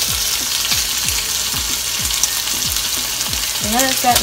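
Bacon strips sizzling steadily as they fry in a skillet.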